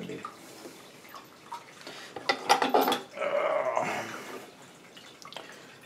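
Metal engine parts of a disassembled Suzuki FZ50 moped engine being handled: a quick run of metallic clinks about two seconds in, then a short rattling scrape.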